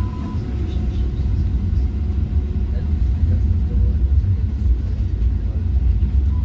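Tram running along its track with a steady low rumble.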